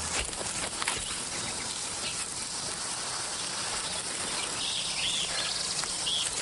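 Outdoor scrubland ambience: a steady hiss of insects, with a few short bird chirps in the last couple of seconds.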